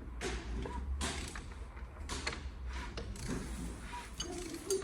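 Hand tools knocking and clicking against metal engine parts, several short separate strikes over a steady low hum.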